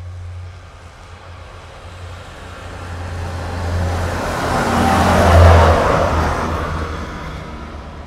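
A road vehicle driving past: its engine and tyre noise grows louder, peaks about five and a half seconds in, then fades away.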